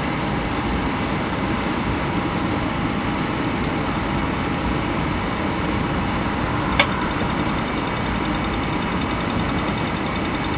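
Suburban RV furnace blower running steadily. About seven seconds in there is a sharp click, and a fast, faint ticking follows as the furnace begins its ignition attempt.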